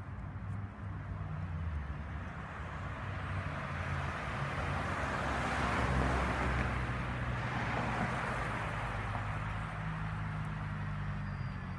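A car passing by on the street: its tyre and engine noise swells to a peak about halfway through and then fades away, over a steady low background rumble.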